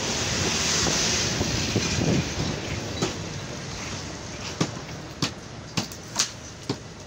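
Wind rushing on the microphone, fading over the first couple of seconds, then a string of sharp, irregular wooden knocks and clatters, about half a dozen, as boards of a wooden table frame are handled.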